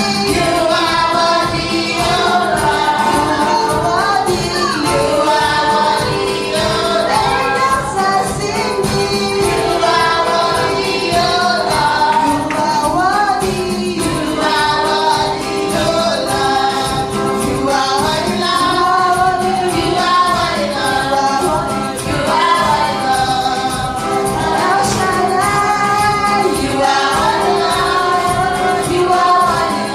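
Gospel worship song: a choir of mostly female voices singing a flowing melody over steady held accompaniment.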